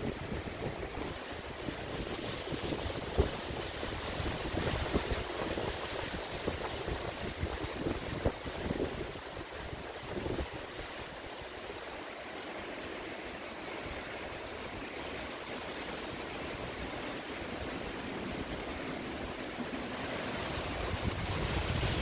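Wind blowing through the tree canopy, a rustling hiss of leaves, with wind buffeting the microphone in low thumps during the first half. It eases off in the middle and builds again in a stronger gust near the end.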